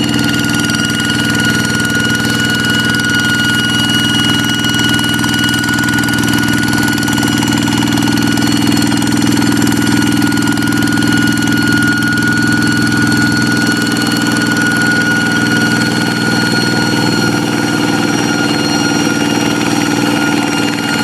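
Hand tractor's single-cylinder Kubota diesel engine running steadily with a high-pitched whine ("ngiung ngiung") over the knocking engine note.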